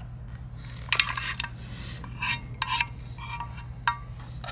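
A metal spoon scraping and clinking against a pan, about half a dozen short strokes, as cooked vegetables are scraped out of it onto the food, over a steady low hum.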